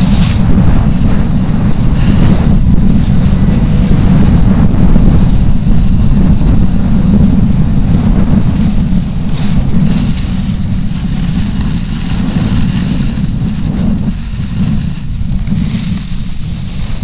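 Wind buffeting a pole-mounted action camera's microphone as a snowboard slides downhill, with the hiss of the board scraping over packed snow. The rumble eases a little near the end as the ride slows.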